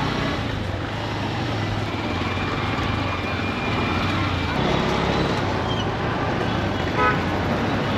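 Steady road traffic noise, with a short beep about seven seconds in.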